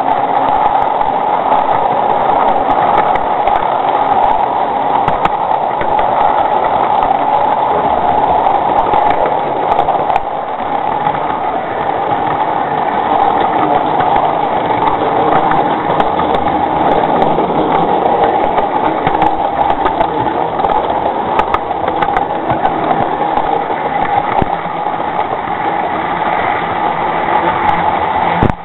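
0 gauge model train running along its track, close up: a steady mechanical whirr of the running gear with occasional faint clicks.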